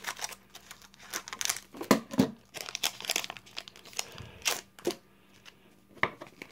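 Foil Pokémon booster-pack wrapper crinkling and tearing as it is worked open, with the cards inside being handled, in a run of short irregular crackles; the loudest come about two seconds in.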